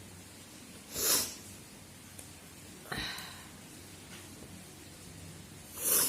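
A person sneezing three times, a couple of seconds apart, each a short sudden burst. These are deliberately provoked sneezes in a sneezing challenge.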